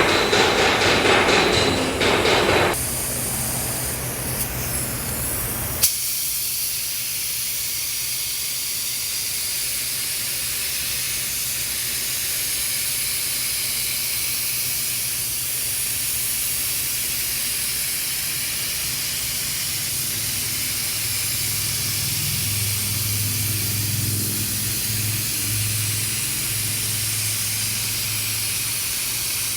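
Compressed-air paint spray gun hissing steadily as it sprays, with a louder, busier stretch of sound in the first few seconds.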